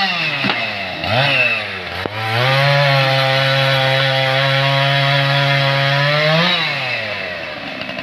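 Petrol chainsaw revved in two short blips, then held at steady high speed for about four seconds before dropping back toward idle near the end.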